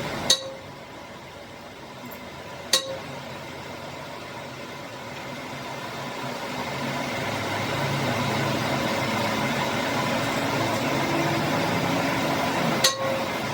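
Three sharp metal-on-metal clinks, each with a short ring, over a steady mechanical workshop noise that grows louder from about six seconds in.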